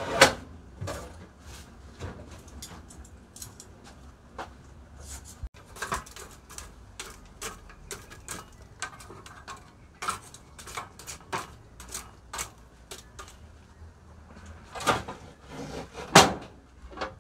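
Metal cooking pots, lids and utensils being handled: scattered clanks and knocks throughout, with a loud one right at the start and two more near the end.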